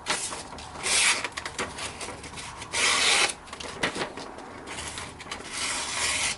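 A folding knife's stainless steel blade slicing through paper in strokes, a rasp of the cut paper: two loud cuts about one and three seconds in and a longer one building near the end. The edge is sharp enough to slice paper cleanly.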